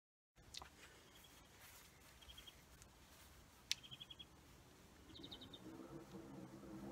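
Faint garden ambience with a small bird's short, rapid high trills, four times over. A sharp click a little past halfway, and a low hum building near the end.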